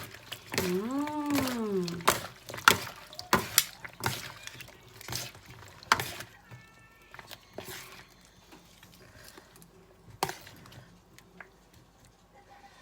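Utensils knocking and clinking against a dish in irregular sharp clicks, denser and louder in the first half, sparse and fainter later. About half a second in there is a short hummed vocal 'mmm' that rises then falls in pitch.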